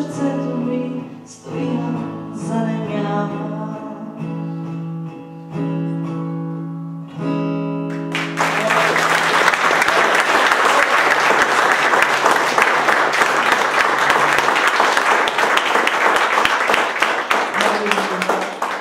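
A woman sings the end of a song to her own acoustic guitar. About eight seconds in the song stops and the audience breaks into applause that lasts about ten seconds and dies away near the end.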